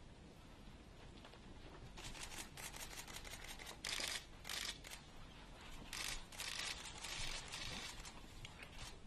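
Press photographers' camera shutters clicking in rapid bursts, starting about two seconds in, the densest bursts around the middle.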